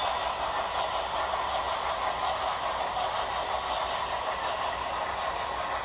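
HO-scale model steam train running on the layout, heard as a steady rushing noise.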